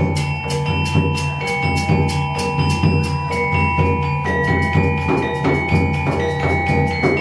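Gamelan accompaniment to a wayang kulit shadow-puppet play: quick, regular drum strokes over a low drum pulse, with ringing metallophone notes held above.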